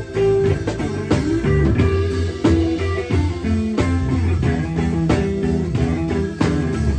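Live blues band playing: electric guitar notes over an electric bass line, with a steady drum beat from a drum kit played with sticks.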